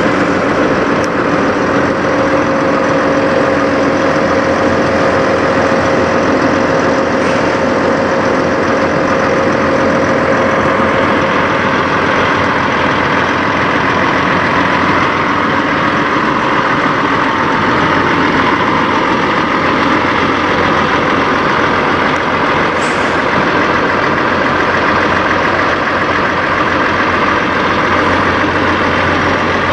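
Peterbilt 389 semi tractor's diesel engine idling steadily.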